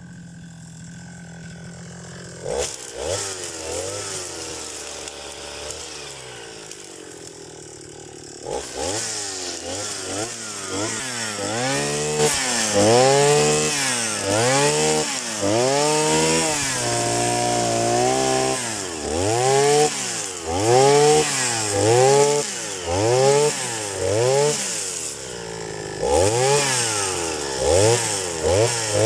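Two-stroke petrol brush cutter engine running low and steady, then from about a third of the way in revved up and down over and over, roughly once a second with one longer high-speed hold, as it cuts grass.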